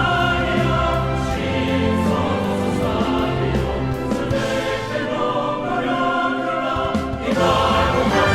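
Background music: choral singing with sustained held notes over an orchestral backing.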